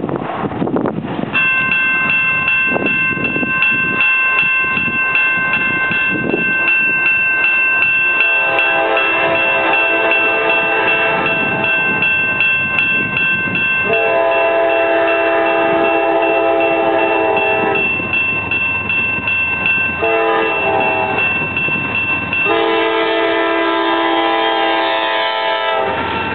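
A railroad crossing bell rings with steady, regular strikes. About eight seconds in, a freight locomotive's air horn starts the grade-crossing signal: two long blasts, a short one and a final long one.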